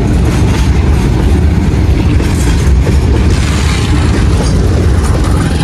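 Freight train of covered goods wagons passing close by: a steady, loud rush of wagon and wheel noise.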